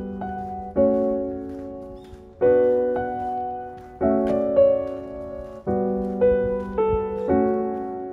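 Background piano music: slow chords struck about every second and a half, each ringing and fading before the next.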